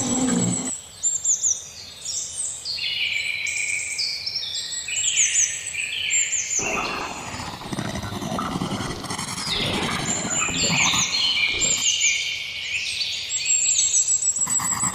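Forest bird chorus: many birds chirping with quick, repeated falling whistles. From about six and a half to twelve seconds in, a low, rough rumbling sound, much like an animal roar, sounds underneath.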